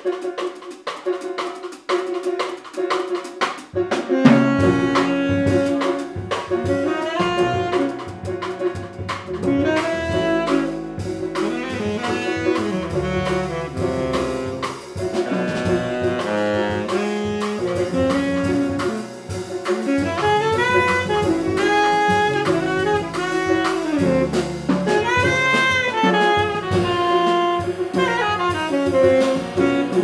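Small jazz band playing: a tenor saxophone carries the melody over drum kit with cymbals, grand piano, hollow-body electric guitar and upright bass. The bass comes in about four seconds in.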